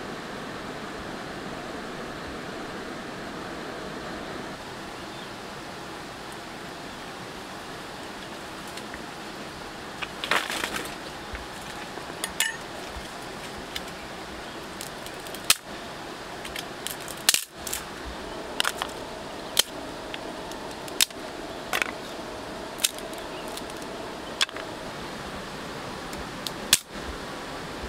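Steady rush of a river running over stones, with a string of sharp, irregular cracks from about a third of the way in as dry branches are snapped by hand.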